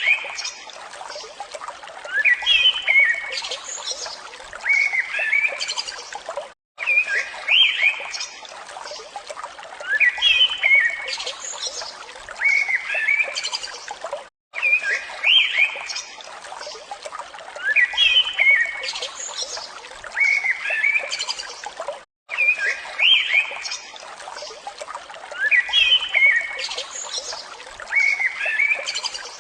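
Songbirds chirping in short rising and falling phrases over a steady trickle of running water. The sound cuts out briefly about every eight seconds and the same stretch of song repeats.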